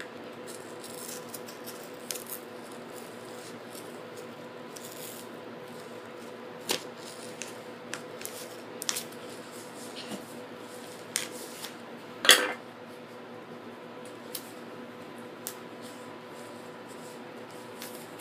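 A screwdriver scraping and prying at the packing tape of a cardboard parcel: scattered clicks, rustles and short scrapes, with one louder scrape about twelve seconds in, over a faint steady hum.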